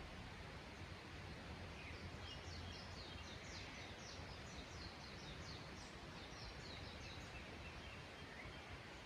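A small songbird singing a rapid run of short, high notes for about five seconds, starting about two seconds in, over a faint, steady background hiss of mountain-forest ambience.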